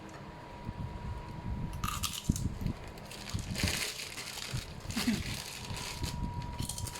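A person chewing and crunching food close to the microphone, with several crisp crackling bites.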